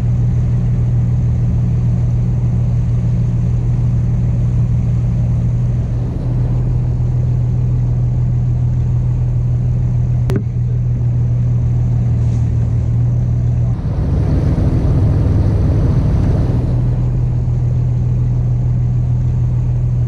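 A boat's engine running steadily while the boat is underway, a loud low drone. About two-thirds of the way through it grows louder and fuller for about three seconds, and there is a single sharp click near the middle.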